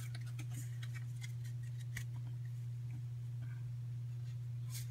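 A steady low hum throughout, with faint scattered crinkles and clicks from a foil Pokémon booster pack being handled and opened.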